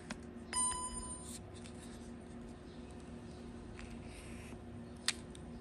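Handling of a DJI Osmo Mobile 6 smartphone gimbal's plastic folding arm: a short electronic beep about half a second in, then small clicks and a sharp click near the end as the arm is moved. A steady low hum runs underneath.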